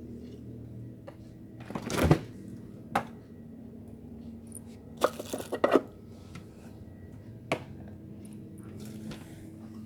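Scattered sharp clicks and crackles over a faint low hum: a short crackling run about two seconds in, single clicks a second later and near the end, and a quick cluster of clicks around five seconds in.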